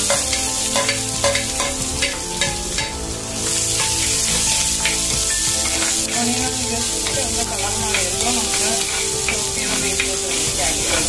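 Chopped onion sizzling in hot oil in an earthenware clay pot as it is tipped in and stirred. A spoon clicks and scrapes against the pot many times over a steady hiss of frying.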